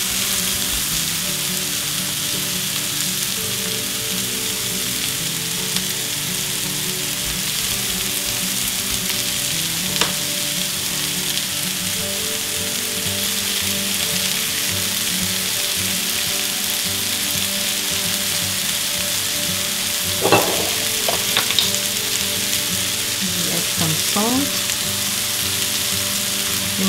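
Sliced mushrooms and diced onions sizzling steadily in a frying pan, with a few light knocks about ten and twenty seconds in.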